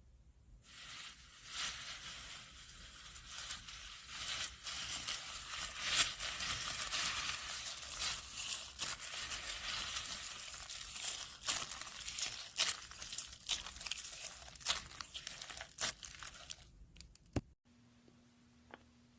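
Slime being handled: a dense, continuous crackling and crinkling full of small sharp pops, which cuts off suddenly near the end.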